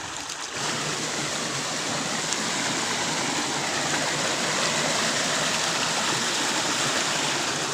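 Rushing water of a waterfall: a steady, even wash of noise that grows louder about half a second in and then holds.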